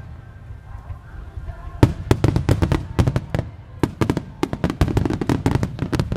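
Starmine fireworks: a short lull of low rumbling, then about two seconds in, rapid volleys of shell bursts, many sharp cracks in quick succession.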